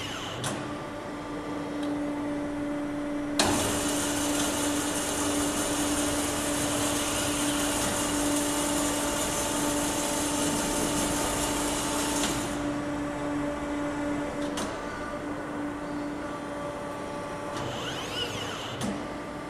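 FE 332 CNC horizontal band saw running under power with a steady hum. About three seconds in a louder rushing whir switches on with a click while the saw bow moves down, and stops abruptly around twelve seconds in.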